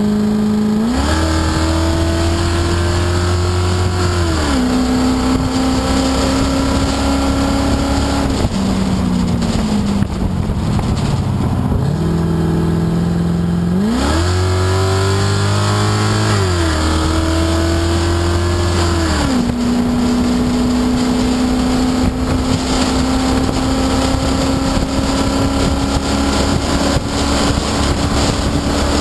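Onboard sound of a Chump Car endurance race car's engine under hard acceleration, heard from inside the roofless cabin. The engine note climbs through the gears with sharp drops at each upshift, falls away through a slowing stretch, then rises steeply again and holds a long, slowly rising full-throttle pull, with constant wind noise throughout.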